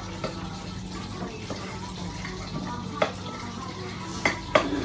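Tableware at a meal: three sharp clinks of dishes, one about three seconds in and two close together near the end, over a steady low hum.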